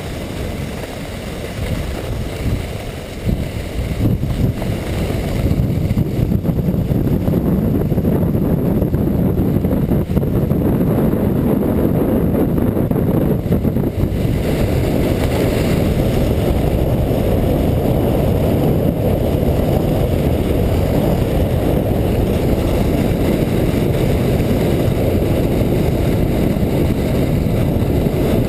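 Steady low rumble of a luge sled sliding at about 30 km/h down a groomed snow track, its runners running over the ridged snow, mixed with wind on the microphone. It gets louder about five seconds in.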